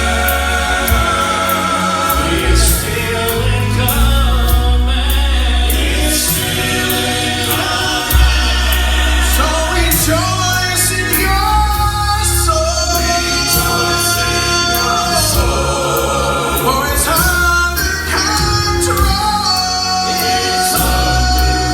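Southern gospel quartet singing in harmony over a band accompaniment with a steady bass line and regular cymbal hits.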